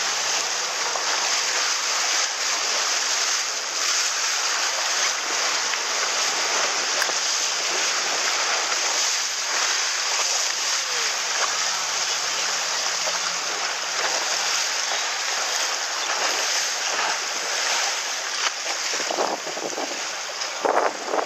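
Wind buffeting the microphone over the rush and slap of choppy water along a small boat's hull as it moves, with a few louder splashes near the end.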